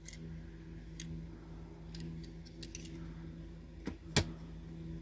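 A few light clicks of small diecast metal toy vans being handled and set down on a table, the sharpest about four seconds in, over a steady low hum.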